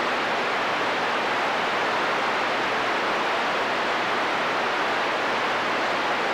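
CB radio receiver hiss: steady static from an open channel between transmissions, as heard during night-time skip.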